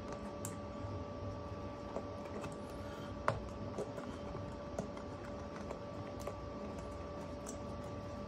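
Hands working a soft rubber RC crawler tire and its foam insert onto a beadlock wheel: scattered faint clicks and rubbing, with one sharper click about three seconds in, over a faint steady hum.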